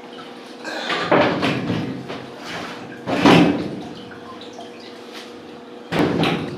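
A few separate clunks and scrapes of washing machine parts being handled, about a second in, around three seconds in and again near the end, over a faint steady hum.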